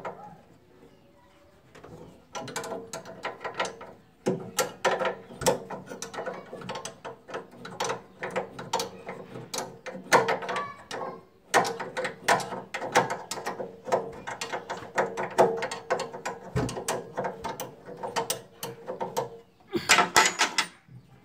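Ratchet wrench clicking rapidly as it is swung back and forth on a bolt, starting about two seconds in and going in runs with brief pauses.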